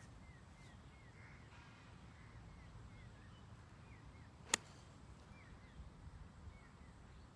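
A 7-iron striking a golf ball off the tee: one sharp, short click about four and a half seconds in.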